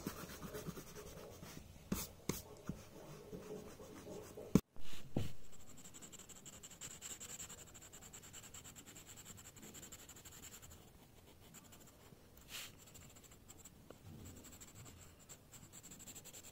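Pen and then pencil scratching and shading on sketchbook paper, a faint steady scratching with a few brief knocks, the loudest about five seconds in.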